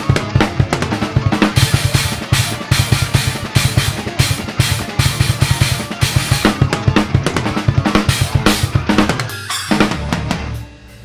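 Acoustic drum kit played fast and hard: dense bass-drum strokes under snare hits and Paiste cymbals. The playing drops away briefly near the end.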